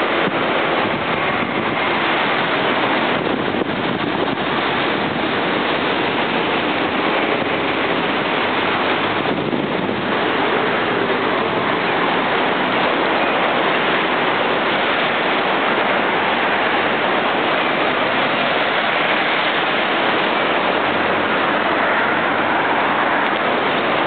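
Ocean surf breaking on the shore: a steady, loud rush of waves that barely changes in loudness.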